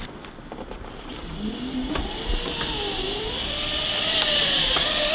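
Zip line trolley running along the cable: a whirring whine that wanders up and down in pitch over a hiss, getting steadily louder as the rider comes down the line.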